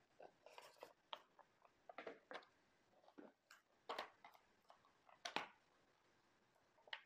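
Faint, scattered rustles and taps of cardboard packaging being handled: small paper boxes lifted out, set down on a table and their flaps opened.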